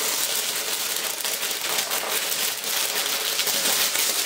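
Tissue paper rustling and crinkling without a break as it is pulled open and unfolded from around the box's contents.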